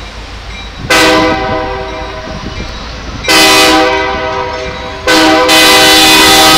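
Diesel freight locomotive's air horn sounding three loud blasts, each a chord of several tones: a long one about a second in, another at about three seconds, and a third starting about five seconds in and still going. The horn is sounded as the train starts across a road crossing with the gates down.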